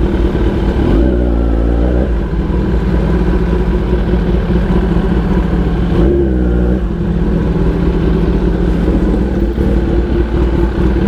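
Kawasaki ZX10R's inline-four engine running at speed through a loud aftermarket exhaust, heard from the rider's seat. The engine note shifts briefly about a second in and again about six seconds in.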